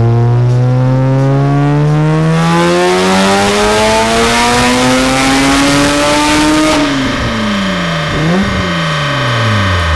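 Single-turbo (Greddy T88) 13B rotary engine of a 1994 Mazda RX-7 FD making a full-throttle dyno pull. The revs climb steadily for about seven seconds with a swelling rush of turbo and exhaust noise, then the throttle is lifted and the revs fall away, with one brief flare on the way down.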